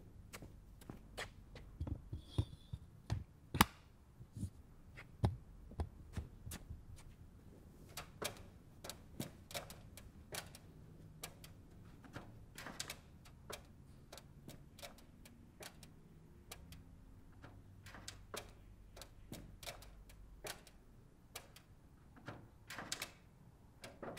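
Irregular series of small sharp taps, clicks and knocks, as of objects being handled and set down, loudest and most frequent in the first six seconds.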